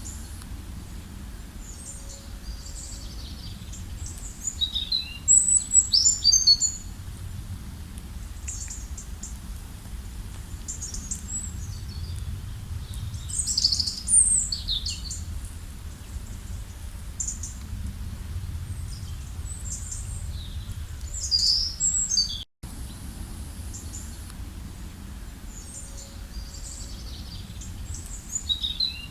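Several songbirds chirping and singing in short high phrases and trills, over a steady low rumble. The sound cuts out for an instant about two-thirds of the way through.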